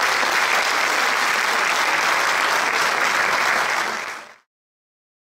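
Audience applauding steadily, fading out quickly to silence a little after four seconds in.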